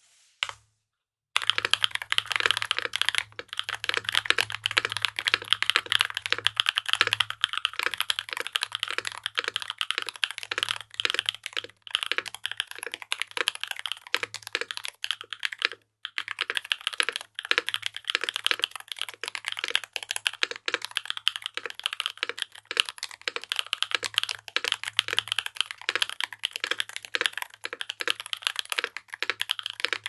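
Continuous typing on a RAMA M65-B mechanical keyboard with stock Emogogo linear switches, a brass plate with silicone dampening, and GMK Serika 2 ABS keycaps. A dense run of keystroke clacks starts about a second and a half in, with two brief pauses partway through.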